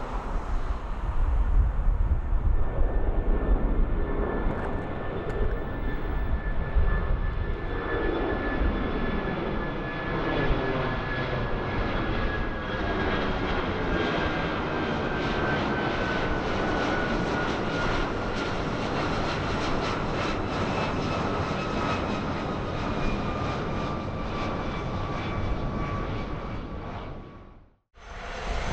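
Airbus A330-200 jet climbing out overhead after takeoff: a steady engine roar with a whining fan tone that slowly falls in pitch as the plane passes and moves away. The sound fades out quickly near the end.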